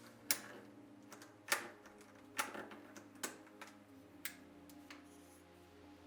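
Plastic keycaps being pushed onto a mechanical keyboard's switch stems one by one: sharp plastic clicks at irregular intervals, about eight of them, with the loudest around one and a half and two and a half seconds in.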